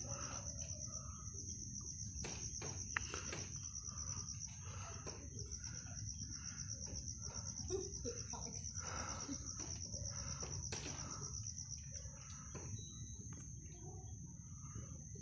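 Night insects trilling steadily at a high pitch over a low background rumble of outdoor noise, with a few faint clicks.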